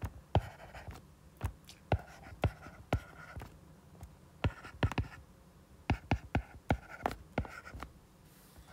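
Stylus writing on a tablet's glass screen: a run of irregular sharp taps in small clusters, with faint scratching of the strokes between them.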